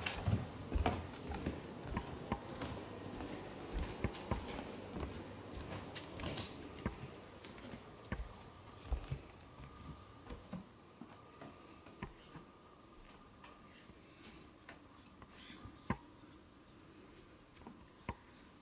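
Handling noise from a camcorder carried on a handheld pole: scattered light knocks and clicks, busier and louder in the first half, thinning out to a few sharp ticks over a quiet room background.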